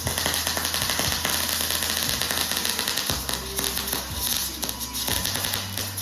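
Electric arc welding on steel: a steady, dense crackle and hiss from the welding arc.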